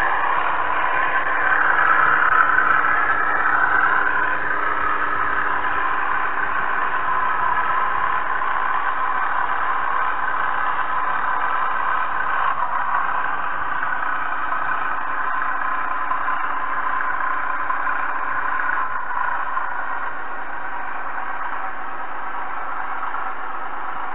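Model railway train running along the track, heard from a camera riding on it: a steady electric-motor whirr with wheel rattle on the rails.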